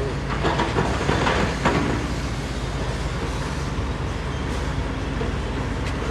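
Heavy diesel earthmoving machinery running steadily, with a loud rattling, scraping clatter of metal and rock for about the first two seconds.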